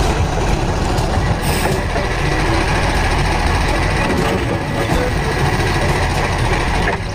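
Truck engine running with a loud, steady rumble.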